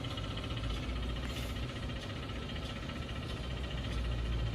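A steady low hum, with no clear starts or stops.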